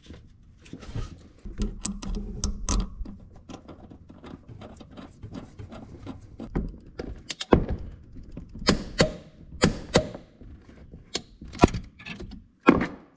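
Irregular metal clicks and knocks from a car's intermediate steering shaft being joined to the U-joint yoke of the upper shaft, with its pinch bolt being put in and tightened. The loudest knocks come in the second half.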